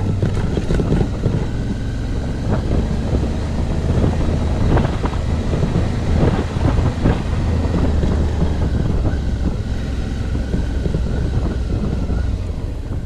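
Suzuki V-Strom motorcycle engine running steadily at low speed on a rough dirt road, with wind buffeting the microphone and scattered knocks and rattles from the bumps.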